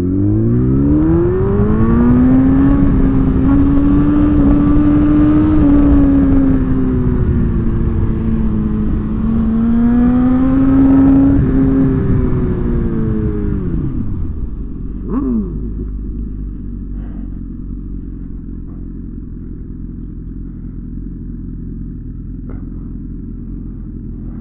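Inline-four sport motorcycle engine pulling hard. The revs climb at the start, hold high and rise and fall gently for about twelve seconds, then drop away quickly. After that a low, steady engine drone remains, with a brief falling whine soon after the revs drop.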